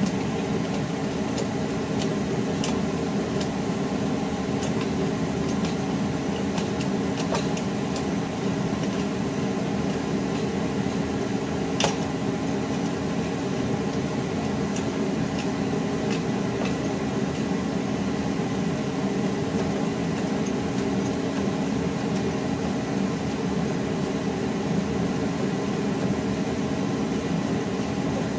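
A steady mechanical hum with scattered light clicks and one sharper click about twelve seconds in.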